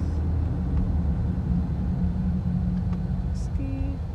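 Low road and engine rumble inside a car's cabin while the car drives slowly; the rumble eases off slightly near the end.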